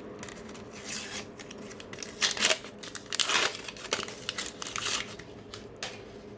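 A paper sticker pack being opened: a series of short rustles and tearing sounds from the wrapper being torn and crinkled, loudest in the middle.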